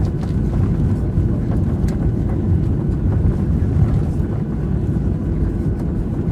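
Cabin noise of a Boeing 737-700 taxiing after landing, heard from inside: a steady low rumble from its CFM56-7B engines at taxi idle and the airliner rolling along the taxiway.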